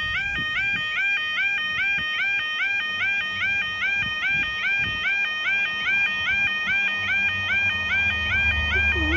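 Level-crossing warbling (yodel) alarm sounding steadily: a pitched electronic tone that sweeps up and holds, about three times a second. Near the end the low rumble of an approaching train builds under it.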